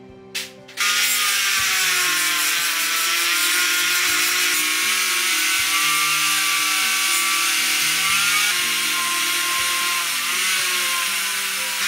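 Handheld rotary tool with a sanding drum grinding a rusty metal rod: a short click, then from just under a second in a loud, steady high-pitched whine whose pitch wavers slightly as the drum bears on the metal.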